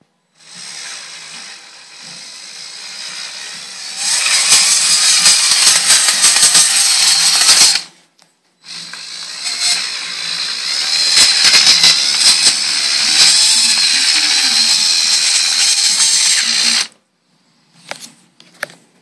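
Small electric gear motors of a radio-controlled Cat 320D excavator conversion driving its plastic tracks: a whirring with many small clicks. It starts softly and runs much louder from about four seconds in, stops briefly near eight seconds, then runs again until about seventeen seconds, followed by a few separate clicks.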